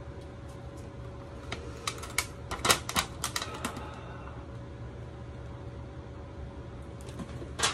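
Thin plastic food packaging crackling and clicking as a clear plastic noodle box and its plastic tray and film are handled and the lid is snapped shut, a quick run of sharp clicks about two to four seconds in and another near the end. A steady low hum runs underneath.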